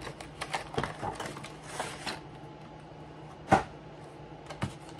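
Cardboard collection box and clear plastic insert tray being opened and handled: a string of small clicks and rustles, a short scrape about two seconds in, then one sharp click about three and a half seconds in, the loudest sound, and another click near the end.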